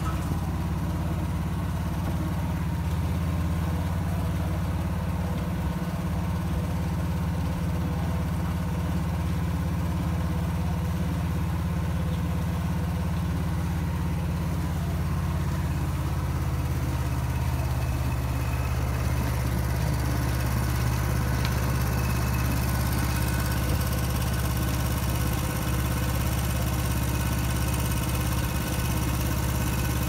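Engine of a Cormidi C85 tracked self-loading concrete mixer running steadily at a constant speed. About two-thirds of the way through, the engine note shifts slightly.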